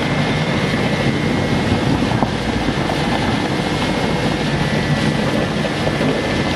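Yurefon industrial shredder running steadily while shredding silvery film and foil scrap: a continuous dense grinding noise with a constant hum and a faint steady high whine.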